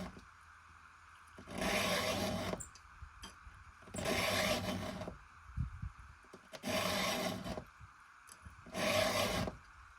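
Round file pushed by hand across a cutter tooth of a chainsaw ripping chain: four file strokes, each about a second long and about two and a half seconds apart, sharpening the tooth's cutting edge.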